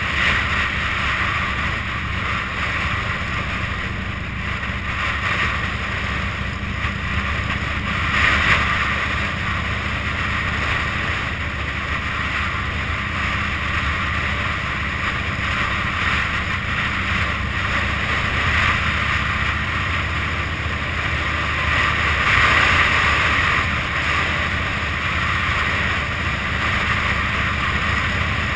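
Cruiser motorcycle engine running steadily at road speed, low in the mix under a continuous rush of wind noise on the handlebar-mounted camera's microphone. The wind noise swells briefly about eight seconds in and again later on.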